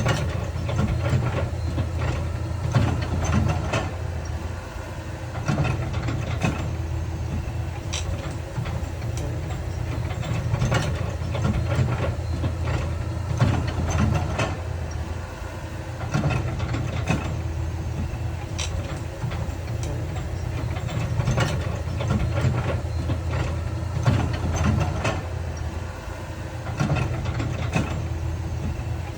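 Heavy diesel earthmoving machinery running with a steady low drone, with frequent metallic clanks and knocks throughout.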